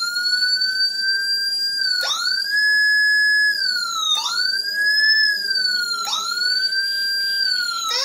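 Whelen HHS electronic siren sounding through a CJB100BD siren speaker, playing one of its programmed tones: a loud sweep that jumps up, climbs, holds and then falls back, repeating about every two seconds, four times. At the very end it switches to a different tone as the program button steps to the next setting.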